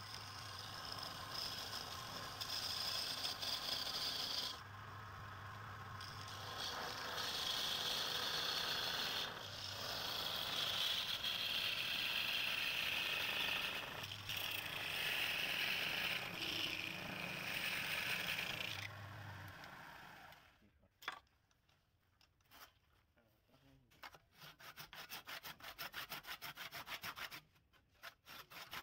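A turning tool scraping against wood spinning on a lathe: a continuous scraping with a few short breaks. In the last third it drops to quieter, rapid, evenly spaced scraping strokes.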